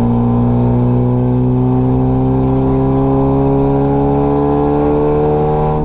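Mazda Miata's inline four-cylinder engine and exhaust heard from inside the cabin, pulling steadily under acceleration, its pitch rising slowly.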